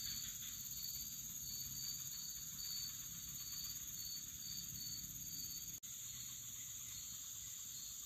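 Steady high-pitched chorus of insects in the forest, with a faint chirp repeating about twice a second. It drops out for an instant nearly six seconds in.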